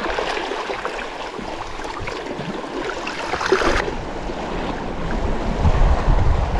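Sea waves washing against shoreline rocks, with wind buffeting the microphone and growing stronger over the last couple of seconds.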